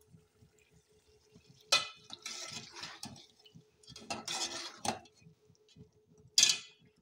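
Metal slotted spoon scraping and clinking against the side of a metal cooking pot while stirring chunks of beef in gravy. There are three short bouts, and the last is a sharp clink, the loudest.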